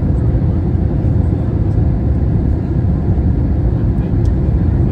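Steady low rumble of engine and airflow noise heard inside an airliner cabin as the plane descends to land.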